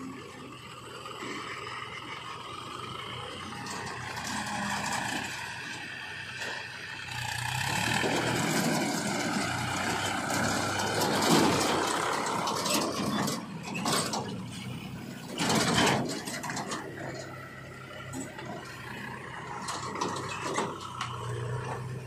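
Diesel engines of a JCB 3DX backhoe loader and a Swaraj 744 FE tractor running steadily, growing louder about seven seconds in as the backhoe works. Several knocks and scrapes from the bucket and soil come through over the engines.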